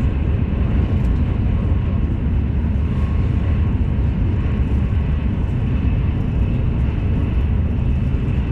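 Steady low rumble of a vehicle running, without pauses or changes.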